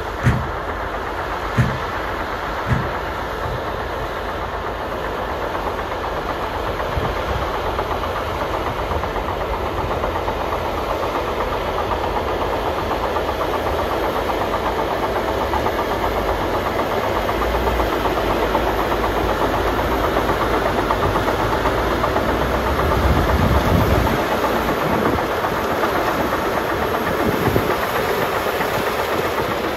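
Caterpillar crawler bulldozer's diesel engine running under load, its steel tracks clattering as it pushes snow, growing louder as the machine comes closer. Three sharp clanks sound in the first three seconds.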